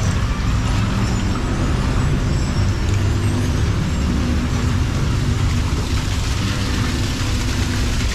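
Small canal tour boat's motor running with a steady low hum as the boat moves along, over a rushing, splashing wash of water from the channel and a waterfall in the rockwork.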